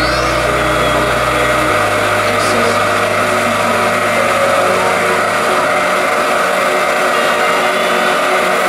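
Electric fan turbine of a model LUF-style water-mist cannon running steadily, blowing water spray.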